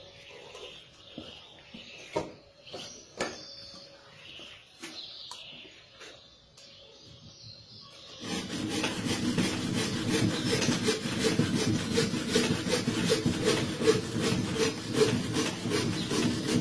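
Scattered light knocks and clicks, then, about halfway through, a handsaw starts cutting wood in steady back-and-forth strokes, about two a second.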